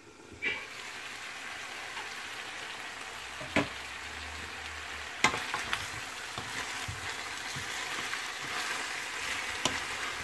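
Pork belly and chicken wings sizzling steadily in oil in a frying pan as they brown, stirred with a wooden spatula. A few sharp knocks come through the sizzle, the loudest about five seconds in.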